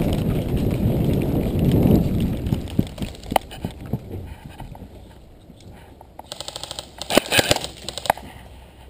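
Rustling and scuffing of a person moving fast through brush, loud for the first two seconds. Then scattered sharp clicks, a quick rattling run of ticks about six seconds in, and a few louder cracks.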